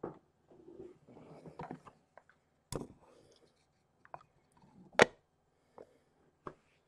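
Cafetière with a glass jug in a black plastic frame, freshly filled with boiling water: faint bubbling and settling at first. Then the plunger lid knocks into place and the plunger is pushed down, with a sharp click about five seconds in as the loudest sound, and a few lighter clicks after it.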